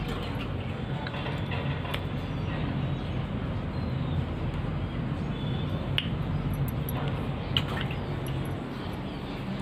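A few light clicks and taps from a small plastic dropper bottle of medicine being opened and handled, over a steady low background hum.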